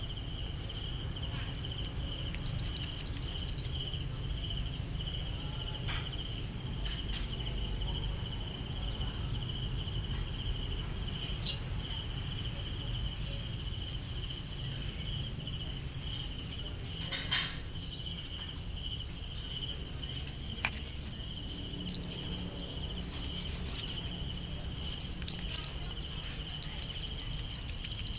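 Steady high-pitched insect chirring with no break. Over it, the metal tag on a puppy's collar jingles in short flurries, a few seconds in and again through the last six seconds or so, with one brief louder rustle near the middle.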